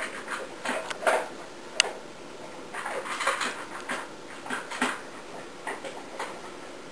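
A boxer dog making a string of short, irregular sounds, with a single sharp click about two seconds in.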